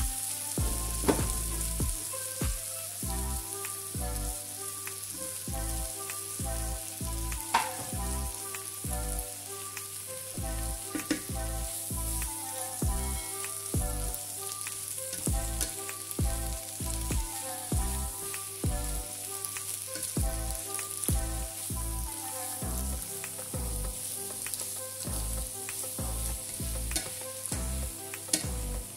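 Sliced zucchini, bell pepper and onion sizzling in a frying pan, stirred with a plastic slotted spatula that scrapes and clacks against the pan now and then. Soft background music with a repeating melody and bass runs underneath.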